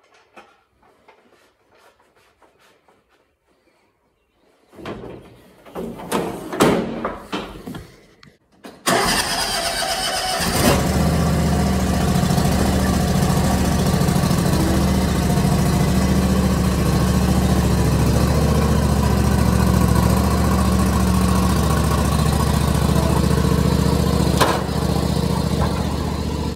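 A few seconds of clattering knocks, then a riding lawn mower's small engine starts about nine seconds in and keeps running steadily at a loud level.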